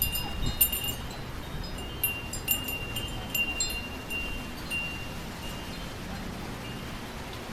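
Wind chimes ringing in gusty storm wind, with clusters of clear, high ringing strikes that thin out in the second half, over a low rumble of wind.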